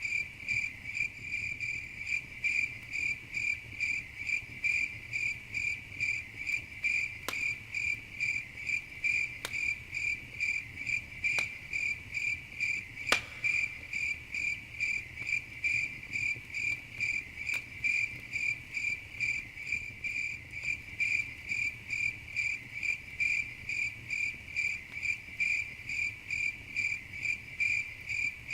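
Crickets chirping steadily in an even pulse, about two chirps a second. A campfire pops sharply now and then, the loudest pop about halfway through.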